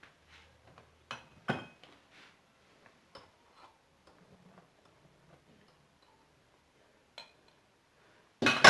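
Faint, irregular light taps and clicks of kitchen utensils against a bowl as flour is added to cake batter, with a louder clatter near the end.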